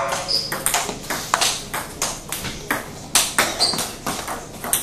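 Table tennis rally: a ping-pong ball clicking off paddles and the table in a quick, irregular run of sharp taps, about four a second.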